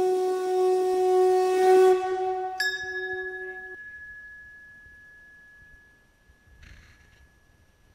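A long blown horn note with strong overtones stops about two seconds in. Then a hanging brass bell is struck once, and its single high ring fades slowly.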